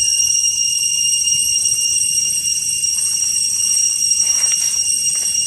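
Loud chorus of cicadas: a steady, high-pitched ringing drone made of several layered pitches that holds without a break.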